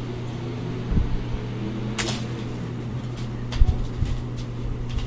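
A few light knocks and thumps from a cat wand toy and bare feet on a laminate floor during play. The loudest are a sharp click about two seconds in and a dull thump past halfway, all over a steady low hum.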